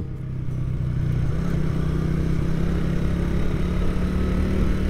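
A small motorcycle's engine running at a steady cruise, its note rising slightly in the first second and then holding, heard from the rider's seat over a hiss of road and wind noise.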